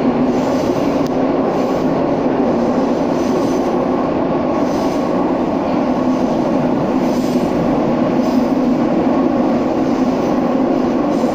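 Moscow Metro train running at speed, heard from inside the passenger car: a steady, loud running noise of wheels and motors with a constant low hum.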